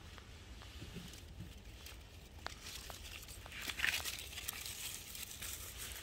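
Faint rustling and crackling of dry leaves and grass, with scattered small ticks; it swells a little past halfway through, then settles.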